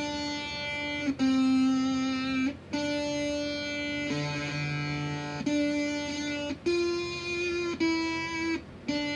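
Electric guitar played through a veroboard clone of the Zvex Machine crossmodulation distortion pedal: a string of single sustained notes, each lasting about a second and stopped before the next, with a fuller two-note sound in the middle.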